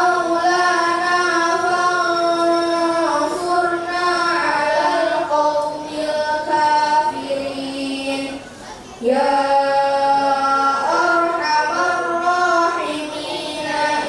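Children reciting the Quran in a melodic chant into microphones, holding long notes that step up and down in pitch. A short pause for breath comes about eight and a half seconds in before the recitation resumes.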